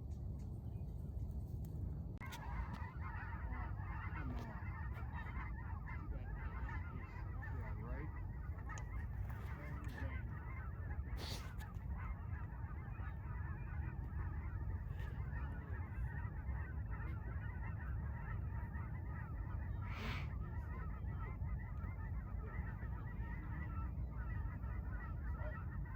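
A large flock of geese honking, many calls overlapping into a continuous chatter that starts about two seconds in, over a steady low rumble.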